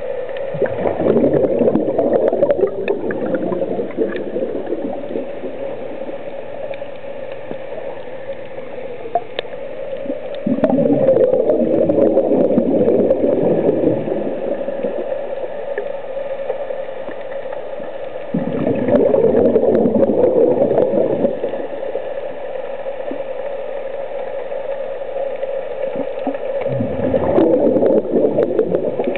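A scuba diver's exhaled breath bubbling out of the regulator in four gurgling bursts, each about three seconds long and roughly eight seconds apart, the slow rhythm of a diver breathing. A steady hum runs underneath throughout.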